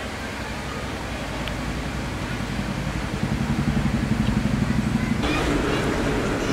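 Street traffic: a motor vehicle engine running with a low pulsing hum that grows louder about halfway through, joined near the end by a rush of road noise.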